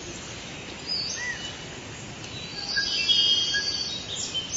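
Forest ambience: several short whistled bird calls and chirps over a steady background hiss, with the loudest trilling calls about three seconds in.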